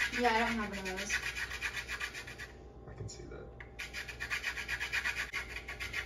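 Rapid, rhythmic rasping strokes that stop for about a second midway and then start again.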